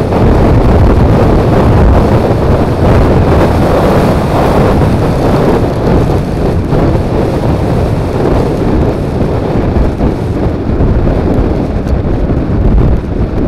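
Loud, steady wind noise buffeting a wing-mirror-mounted action camera's microphone on a Suzuki Burgman 400 scooter at road speed, with the scooter's running noise underneath. It eases a little near the end.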